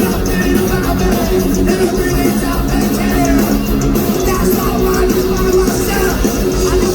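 Punk rock band playing live at full volume: loud distorted rock music with shouted singing over it.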